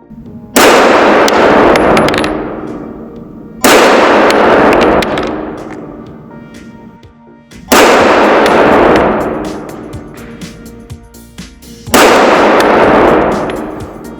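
Four 9mm pistol shots from a Glock 45 firing PMC 115 gr FMJ rounds, spaced about three to four seconds apart, each with a long ringing tail. Faint background music plays between the shots.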